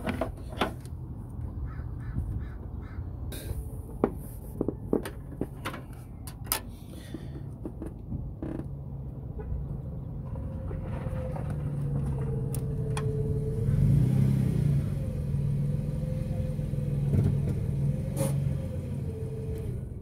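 Small clicks and taps of a plastic wiring-harness connector being handled and pried at. From about halfway in, a vehicle engine hum rises and holds, wavering in pitch, and becomes the loudest sound.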